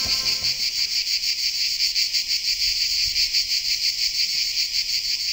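Insect chorus: a loud, steady high-pitched shrill with a fast, even pulse.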